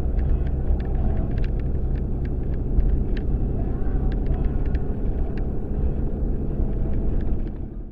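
Car driving at road speed, heard from inside the cabin: a steady low rumble of engine and tyre noise with scattered faint ticks and rattles. The sound fades out quickly near the end.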